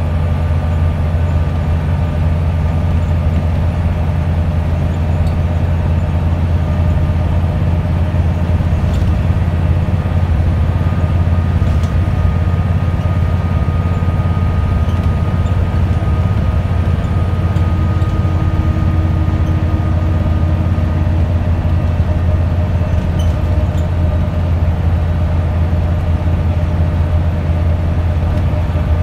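Wright Solar single-deck bus on a Scania chassis running steadily at cruising speed, heard from inside the passenger saloon: a constant deep drone of the diesel engine and drivetrain with a faint whine over road and tyre noise.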